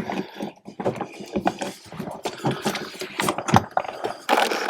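Irregular small clicks and scrapes of a screwdriver and mounting screw against an electrical outlet as the bottom screw is fumbled into its hole and hard to start.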